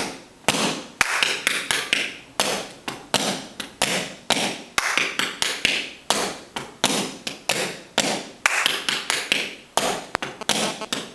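Tap shoes' metal toe and heel taps striking a hard floor in a quick, uneven dance rhythm of sharp clicks, about four a second.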